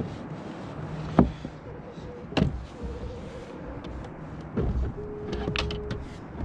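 A few sharp knocks and thuds on a plastic kayak as a landed halibut and fishing gear are handled, over a steady hiss; the loudest knocks come about a second in and again about two and a half seconds in, with a cluster of small clicks near the end.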